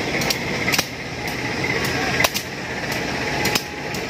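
CC201 diesel-electric locomotive running as the train gets under way again, with sharp clicks and knocks at irregular intervals, several a second.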